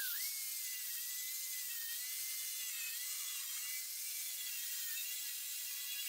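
A handheld high-speed grinder running on a steel plate, its high whine sagging in pitch each time it is pressed into the metal and climbing back as the load eases.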